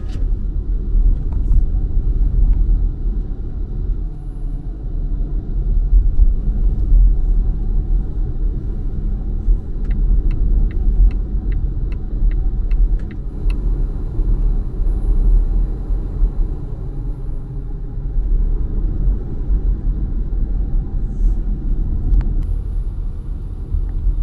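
Volvo XC40 Recharge driving, heard from inside the cabin: a steady low rumble of road and tyre noise. About halfway through, a run of about nine light ticks comes at an even pace, a little over two a second.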